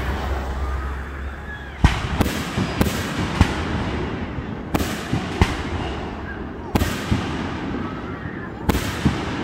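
Aerial firework shells bursting overhead: about ten sharp bangs, often in quick pairs, a second or two apart.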